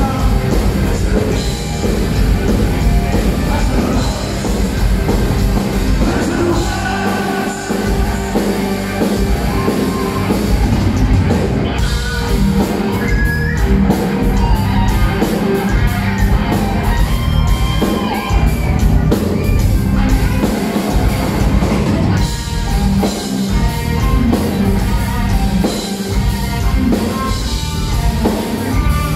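Metal band playing live at full volume through a hall PA: distorted electric guitars, bass, pounding drums and a sung lead vocal, heard from within the crowd with the hall's echo.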